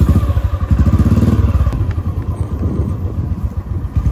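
Motorcycle engine idling just after being started, a steady rapid pulsing beat.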